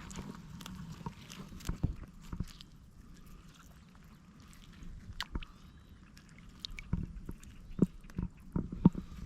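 Scattered knocks, clicks and wet squishes from crab catching in shallow water and mud, sparse at first and quickening near the end.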